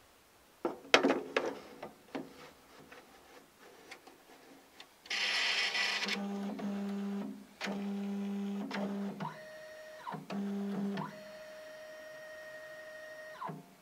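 Nikon Coolscan 8000 film scanner taking in a slide holder: a few clicks and knocks as the holder is pushed into the slot, then the scanner's motors run in a series of stop-start whines at changing pitches, each start and stop gliding, as it loads the holder.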